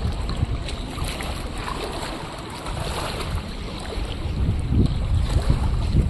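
Strong gusting wind buffeting the microphone over choppy river water, with the gusts growing stronger near the end.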